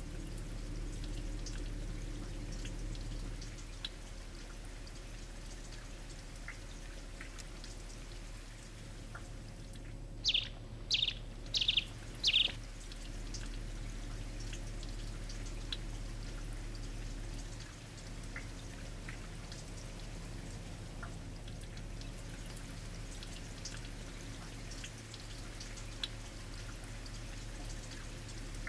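Floodwater flowing over a road, a steady rushing and pouring of water. About ten seconds in, a bird gives four quick, high calls, and fainter bird chirps come and go.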